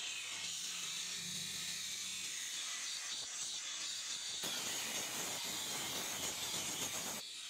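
Power tool working on steel knife blades: a steady high hiss that turns abruptly, about four and a half seconds in, into a fuller, coarser noise, which cuts off shortly before the end.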